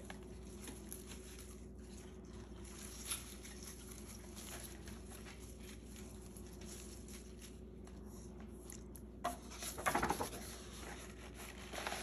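Soft handling of paper, flower petals and leaves over a faint steady hum. About ten seconds in there is a louder crackling rustle as a sheet of paper is laid over the arrangement, and a shorter rustle comes near the end.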